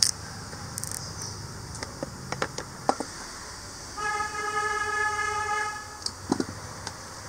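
Knife strokes and sweet potato pieces knocking against a wooden board and a steel pressure cooker, a few sharp clicks and knocks. About four seconds in, a vehicle horn sounds one steady note for about two seconds.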